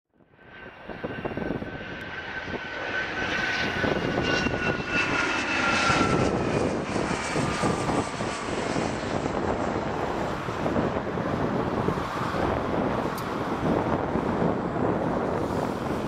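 Dassault Falcon 2000EX business jet's twin turbofan engines as it passes low overhead on landing approach. The sound fades in, and a high whine slides down in pitch as the jet goes over, leaving a steady rumbling jet noise.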